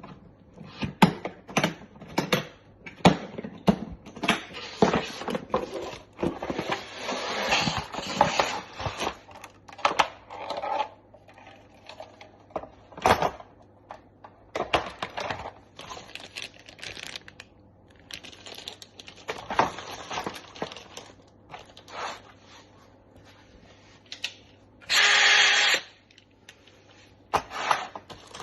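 Packaging and a tool case being handled: irregular clicks, knocks and rustling of cardboard and plastic. Near the end a loud, steady noise lasts about a second.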